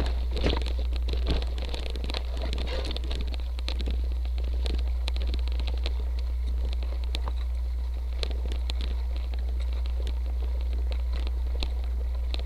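Motobecane Fantom Cross cyclocross bike riding over a rocky dirt trail: irregular clicks and crackle of the tyres on gravel and small rattles from the bike, over a steady low rumble.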